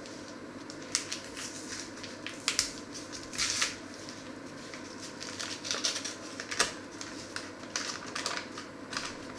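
Paper bag being opened and handled by hand, its paper crinkling and rustling in irregular sharp bursts.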